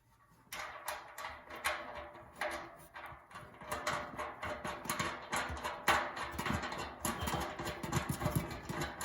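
Rapid, irregular metal clicking and knocking as a bolt and nut are fitted and tightened on a charcoal grill's steel body and legs, starting about half a second in.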